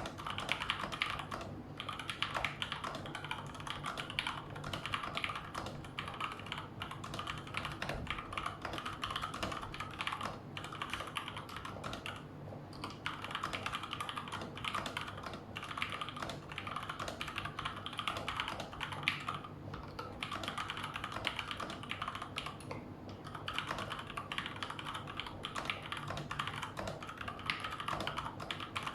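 Fast, continuous typing on a Cooler Master CK550 V2 mechanical keyboard with linear Gateron Red switches, the keystrokes coming in dense runs broken by a few brief pauses.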